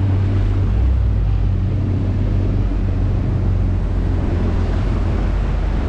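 Jet ski engine running steadily with a low drone, mixed with water and wind noise.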